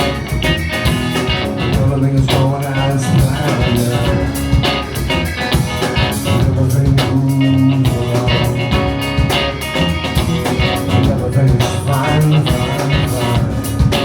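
Live rock band playing an instrumental stretch between sung lines: a steady drum beat with bass and guitar.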